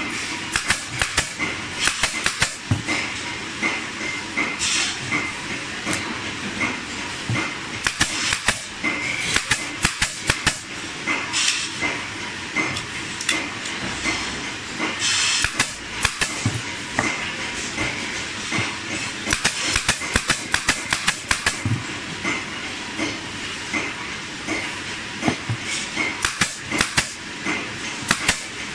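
Pneumatic staple gun firing repeatedly into cloth and wood, sharp clacks coming in quick clusters, with brief hisses of air now and then, over a steady background hiss.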